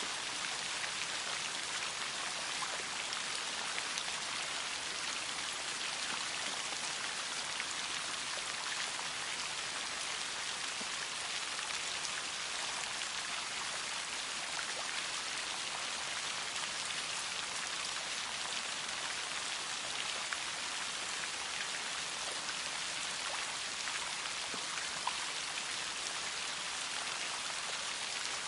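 Steady rain falling: an even hiss with scattered individual drops ticking.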